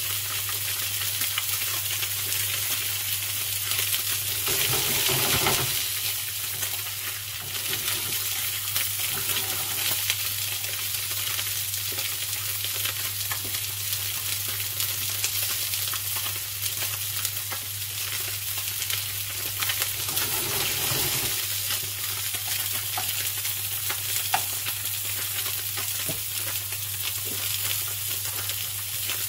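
Sea bass fillets frying in hot oil in a pan: a steady sizzle with fine crackling.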